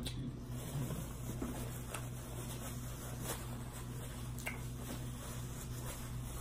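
Quiet room with a steady low hum and a few faint, scattered clicks.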